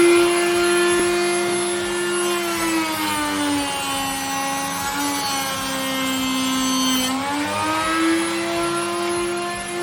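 High-speed electric router running and cutting a groove in MDF, its whine dropping in pitch for a few seconds from about three seconds in as the bit takes the load, then climbing back.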